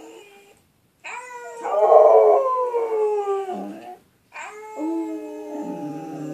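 Husky-type dog howling: a howl trails off within the first second, then two long howls follow after short breaks. Each starts high and slides down in pitch, and the first of the two is the loudest.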